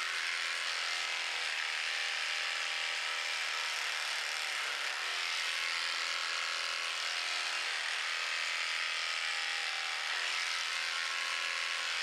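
Electric horse clippers running at a steady, even pitch as they shear the horse's coat over the hindquarters.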